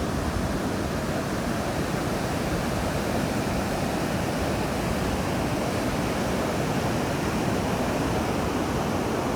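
Pacific Ocean surf breaking and washing up the beach: a steady, continuous rush of water.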